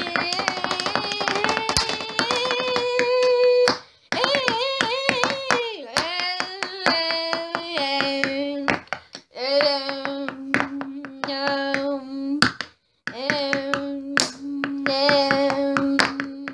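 A voice singing wordless, long held notes one after another, with short breaks between them and the pitch wavering and gliding in places.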